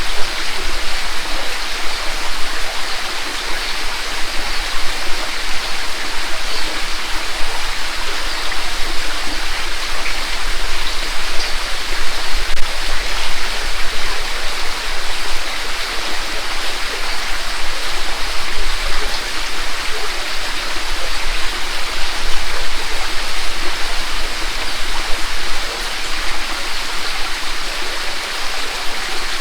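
Mountain gorge stream flowing over a rocky bed with small falls: a steady, even rush of running and splashing water.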